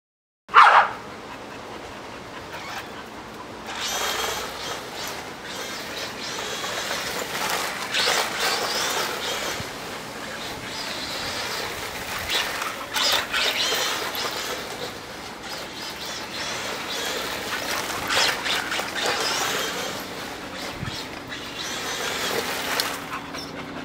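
Radio-controlled buggy driving across a grass lawn, its motor and tyres surging in repeated bursts every few seconds as it accelerates and turns. It opens with a short loud burst.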